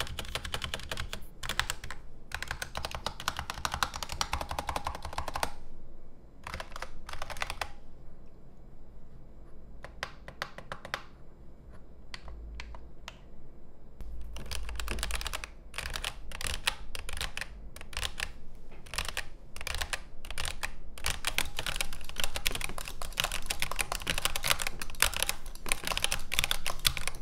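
Typing on a Razer Huntsman V3 Pro gaming keyboard with second-generation Razer analog optical switches and doubleshot PBT keycaps: quick runs of key clicks. The keystrokes thin out about six seconds in, then turn fast and dense again from about fourteen seconds, getting louder.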